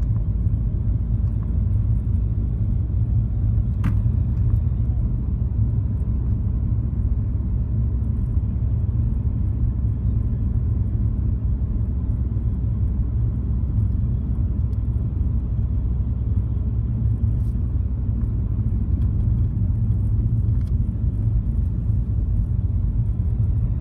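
Steady low rumble of a car's engine and tyres on the road, heard from inside the cabin of a car driving at an even speed.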